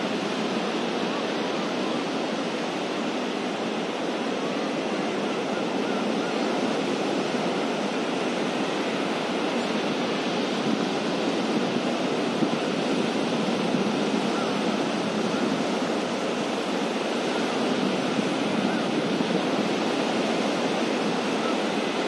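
Ocean surf breaking on a sandy beach: a steady, even rush of waves with no single crash standing out.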